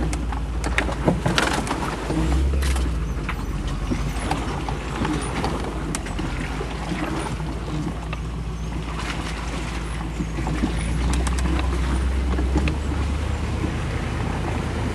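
Engine of a four-wheel-drive vehicle running steadily in diff lock as it drives down into a flooded river crossing, with knocks and rattles in the first few seconds. The engine note swells briefly about two seconds in and again about eleven seconds in.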